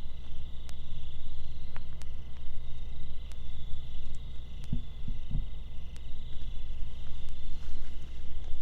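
Steady high-pitched insect drone in the woods over a low rumble, with a few faint clicks and two soft thuds about five seconds in.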